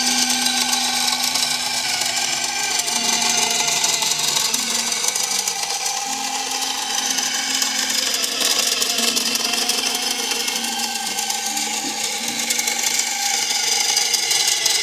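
Renwal visible Wankel rotary engine model running on its electric motor: a loud, steady whir of the motor driving the plastic rotor and gears, wavering slightly in pitch. Most of the noise comes from the electric motor.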